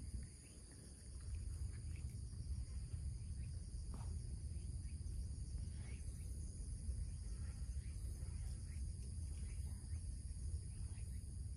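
Insects droning steadily on several high pitches, over a continuous low rumble.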